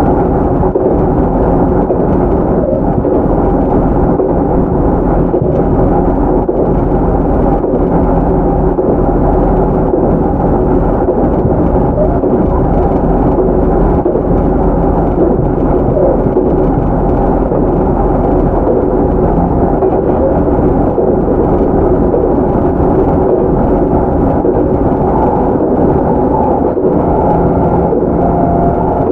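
JR Central 311 series electric train (KuMoHa 311 motor car with MT61 traction motors) heard from on board running at steady speed: an even, loud rumble of wheels and running gear, with a faint steady hum over it.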